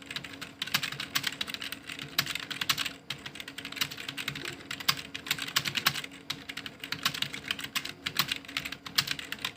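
Computer keyboard being touch-typed at a rapid, steady pace: a continuous patter of key clicks, with short pauses about three and six seconds in.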